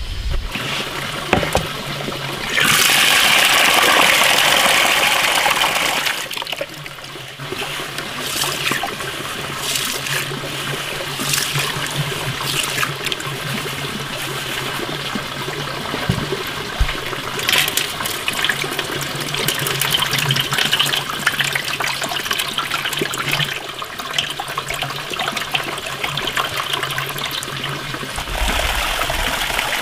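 Water sloshing and splashing as black beans are rubbed clean by hand in a wooden bowl of water, with a steady rush of running water for a few seconds near the start and the water poured off near the end.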